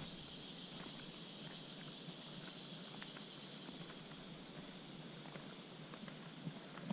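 Footsteps of a hiker walking on a forest trail, soft scattered steps and crunches over a steady, high-pitched background hiss.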